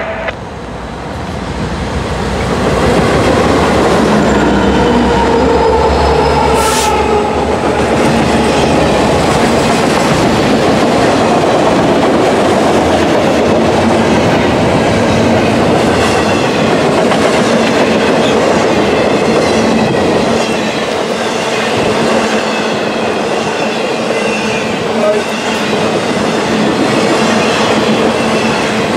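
Diesel-led intermodal freight train passing close by, growing louder over the first few seconds as the locomotives arrive. Then double-stack container well cars and trailer-carrying cars roll past with a steady wheel-on-rail rumble and clatter and a faint wheel squeal.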